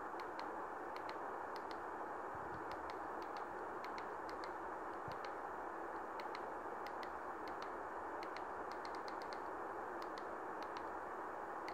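Faint, light clicks at an irregular pace, typical of remote-control buttons being pressed to step through a settings menu, over a steady background hiss.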